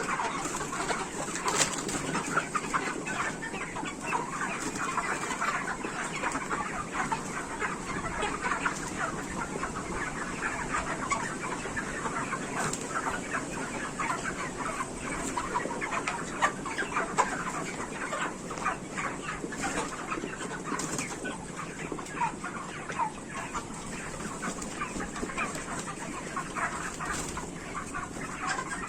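A large flock of broiler chickens clucking and calling continuously, many birds at once, with frequent short sharp calls over a steady din.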